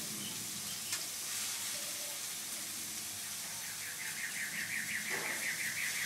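Chicken sizzling on a gas grill, a steady hiss, with one light click about a second in. For the last couple of seconds a bird sings a fast, even trill over it.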